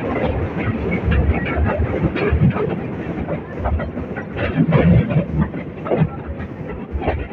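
Metre-gauge train running: a steady low rumble with irregular clacks and knocks from the wheels on the track.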